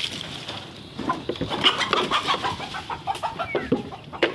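Chickens clucking in a quick run of short calls, one of them a brief falling squawk, with a sharp knock near the end.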